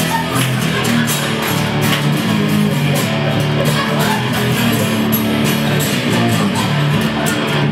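Acoustic guitar strummed in a steady rhythm, chords ringing without singing.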